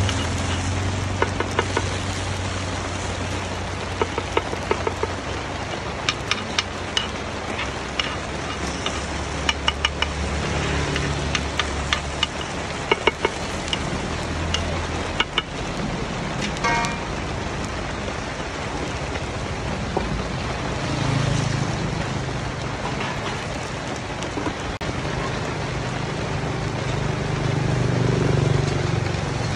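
A metal scoop clicking and scraping against a metal multi-well cake pan as small coconut cakes are lifted and turned, in scattered sharp clicks, over the steady rumble of passing road traffic. A short horn toot sounds about 17 seconds in, and vehicles swell past near the end.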